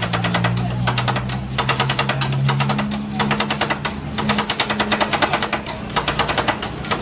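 Metal spatulas chopping and tapping fast on the steel cold plate of a Thai rolled ice cream stall as the ice cream mix is worked. The clatter runs at about eight strikes a second, in runs broken by short pauses, over background music.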